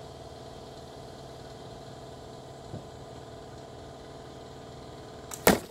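Steady engine hum, then near the end a single loud sharp crack of a slingshot shot at a target of standing chopsticks.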